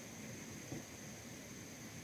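Faint steady background hiss with a thin high-pitched tone running through it, and one small tap about three-quarters of a second in.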